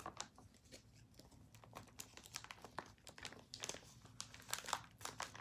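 Faint crinkling and rustling of binder pages, with scattered light ticks, as a card is slipped into place in the binder.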